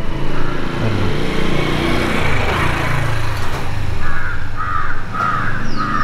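Crows cawing in a run of short calls, about two a second, starting about two-thirds of the way in, over a low steady rumble.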